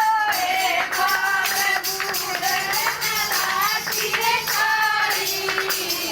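A bhajan (devotional folk song) sung to the steady shaking of jingling hand percussion such as a tambourine, the voice holding long wavering notes.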